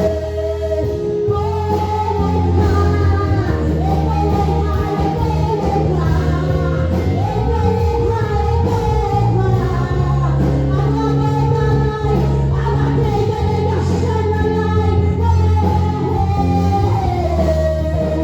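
Live worship song: singing over a band with a continuous bass line.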